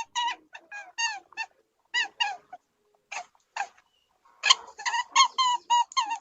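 A small animal making many short, high-pitched calls, most falling slightly in pitch, in clusters with brief pauses and a denser run in the last couple of seconds.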